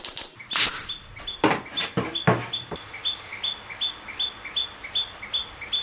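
A bird chirping over and over, a short high two-note chirp about two or three times a second. A few sharp knocks of MDF boards being handled sound in the first half.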